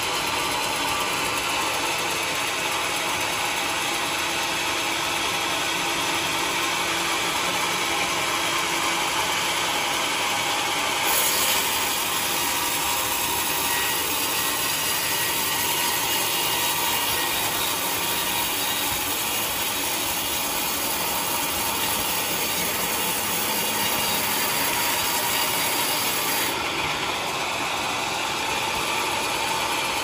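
Large band sawmill running, its blade cutting lengthwise through a teak log with a steady mechanical whirr and hiss. The hiss grows brighter from about eleven seconds in until a few seconds before the end.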